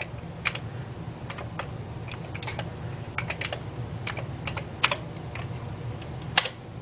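Keystrokes on a Commodore 128 keyboard: irregular clicks as a host name is typed, with one louder click near the end.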